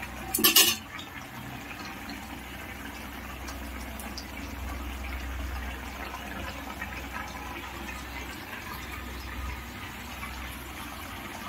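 Thick vegetable curry of drumstick, tomato and brinjal bubbling steadily at a rolling boil in a pan. There is a brief loud clatter about half a second in.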